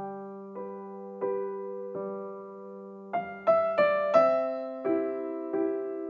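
Background piano music: single notes played slowly, then a quicker run of higher notes from about three seconds in.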